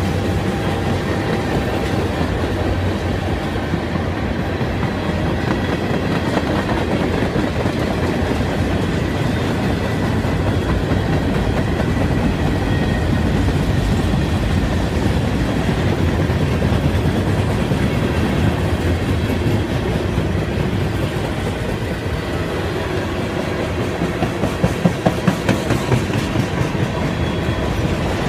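Freight train cars rolling past with a steady rumble and rattle of steel wheels on rail and a clickety-clack. Near the end comes a quick run of sharper, louder clacks as wheels cross a rail joint.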